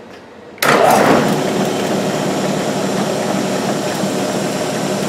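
Milling machine spindle switched on about half a second in, then running steadily with an end mill fitted, a steady motor-and-drive hum.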